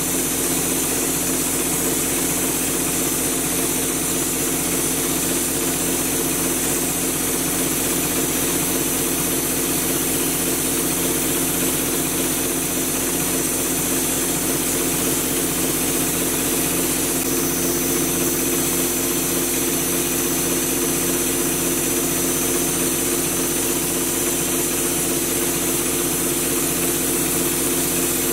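Drywall hopper gun spraying texture mud with a steady hiss of compressed air, over the continuous hum of the air compressor that feeds it.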